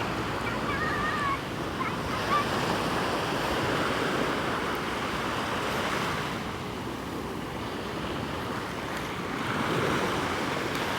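Sea waves washing onto a beach: a steady rush of surf that swells again near the end.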